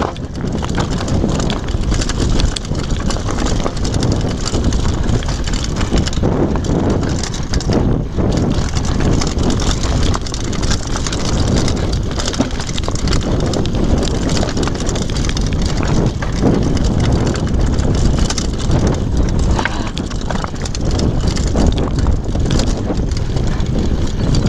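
Downhill mountain bike rattling and crunching over a rocky trail at speed, with wind rushing over the microphone and many small knocks from the stones.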